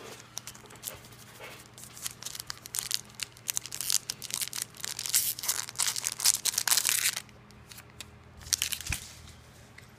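Foil Pokémon booster pack wrapper being torn open and crumpled: a run of sharp crinkling crackles from about two seconds in that stops suddenly around seven seconds, then a shorter crinkle a little before the end.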